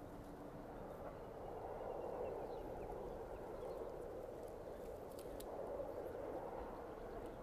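Distant single-car diesel railcar running along the line: a faint, steady engine and running drone that grows slightly as it comes closer, with a few faint clicks about five seconds in.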